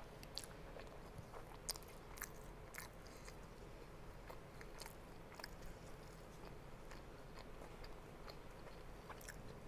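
Quiet close-up chewing of rice and chicken, with soft wet mouth sounds and scattered small clicks and smacks a few times a second.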